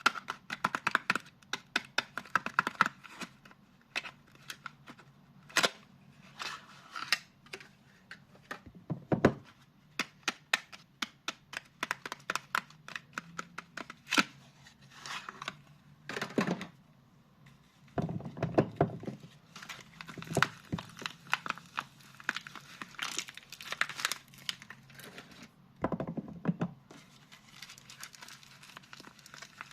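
Soap packaging being torn open and unwrapped by hand: repeated crinkling and tearing of wrappers in short bursts, with occasional soft thunks of the bars being handled.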